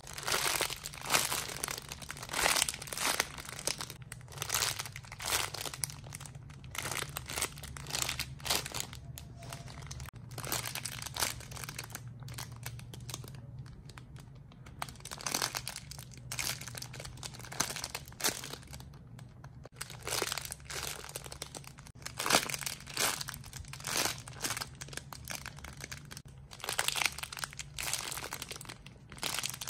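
Crinkling of plastic or paper wrapping as squishy toys are handled, in irregular bursts of crackles over a steady low hum.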